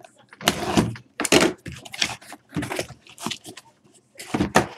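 A cardboard shipping case torn open by hand: a series of about six short rips and scrapes of cardboard, with the case pulled off the boxes inside.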